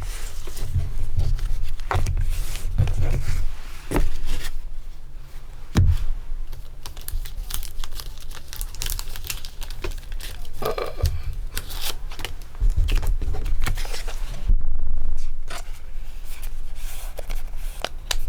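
Crinkling and rustling of foil booster-pack wrappers and plastic card sleeves as Pokémon trading cards are handled, with scattered soft thumps.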